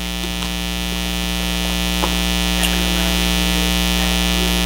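Steady electrical mains hum and buzz, many-pitched. It grows a little louder over the first two seconds and then holds level, with a couple of faint clicks.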